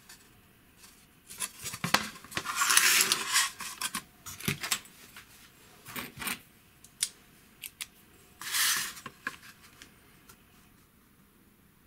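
A thin plywood sheet sliding and being handled on a cutting mat, with a ruler set down on it: two brushing swishes, the first about three seconds in and the second near the end, and scattered light taps and clicks.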